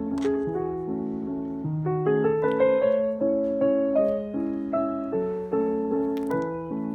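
Background piano music: a gentle melody of held notes over a steady accompaniment, with a brief click about a quarter-second in and another near the end.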